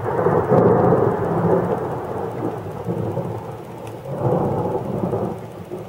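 Thunder rolling: a long, deep rumble that peaks about half a second in and dies down, then swells again about four seconds in before fading.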